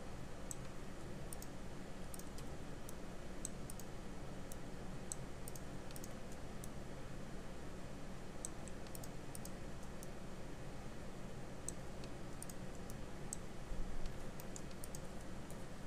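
Scattered sharp clicks of a computer mouse and keyboard being used, irregular and a few a second, over a steady low hum. There is a soft low bump near the end.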